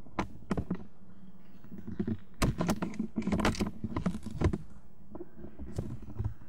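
Irregular light clicks and rustles close to the microphone, a few at first, then a dense cluster through the middle, over a steady low hum.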